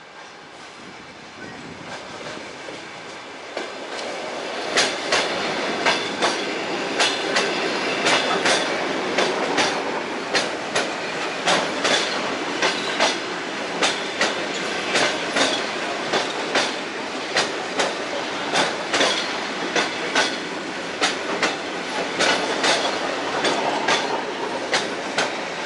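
ED2T electric multiple unit running past along the platform. Its rumble builds over the first few seconds, then its wheels click over the rail joints in a regular clickety-clack, about one and a half clicks a second.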